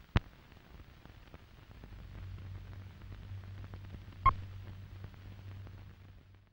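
Old film leader soundtrack: faint hiss and dust crackle with a low hum, a sharp pop just after the start and a second pop with a short beep in it about four seconds in. It cuts off suddenly at the end.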